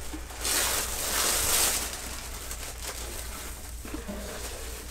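Tissue paper rustling and crinkling as it is pulled open by hand, loudest for about a second and a half starting about half a second in, then softer handling noise.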